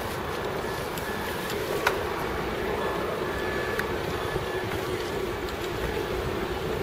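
Steady rushing noise of a bicycle being ridden over paving, with a sharp click about two seconds in and a few fainter ticks and rattles.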